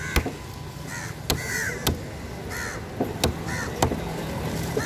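Cleaver chopping pieces of yellowfin trevally on a wooden board, a handful of sharp knocks at irregular intervals, with crows cawing several times in between.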